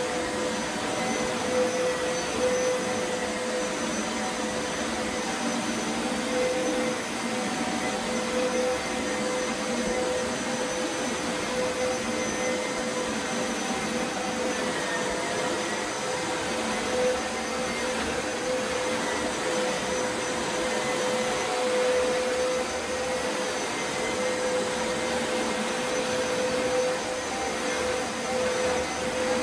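Upright carpet shampooer running steadily as it cleans carpet: a constant motor drone with a steady whine, sped up to three times normal speed.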